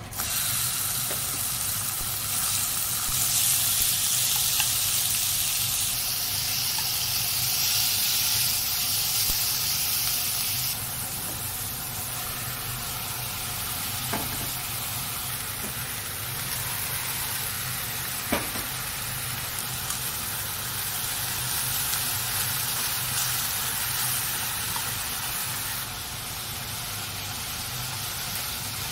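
Sliced pork and then cabbage and bean sprouts sizzling in hot oil as they are stir-fried in a frying pan. The sizzle is loudest in the first ten seconds and then settles lower, with two light knocks in the middle.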